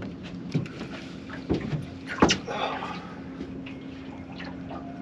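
Several hollow knocks and bumps on the fishing boat's deck and seat as the angler moves and sits down, the loudest about two seconds in, over a steady low hum.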